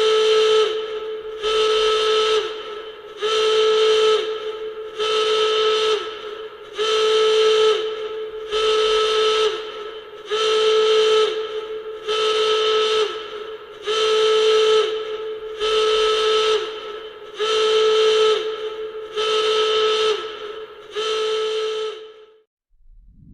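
Nuclear alarm sound effect: a horn-like tone with a whistling edge, pulsing about once every two seconds. Each blast lasts just over a second and dips slightly in pitch as it cuts off. The pulses stop about 22 seconds in, and a new low sound begins to swell right at the end.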